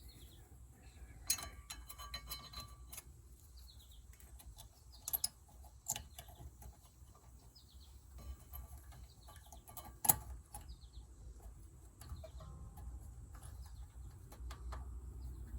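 A few sharp metallic clicks and taps of hand tools and brake parts being handled, the loudest about ten seconds in, with small birds chirping faintly throughout.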